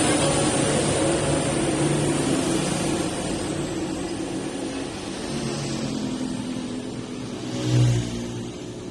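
A motor vehicle's engine running, slowly fading, with one brief louder low bump near the end.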